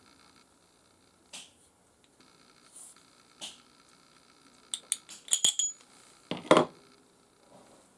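Small metal objects being handled: a few faint taps, then a quick run of sharp metallic clinks about five seconds in, and one louder clunk a second later.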